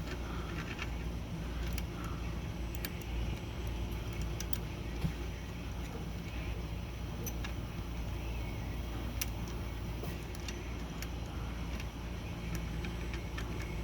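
Scattered small metal clicks and taps from typewriter parts being handled and fitted, over a steady low hum.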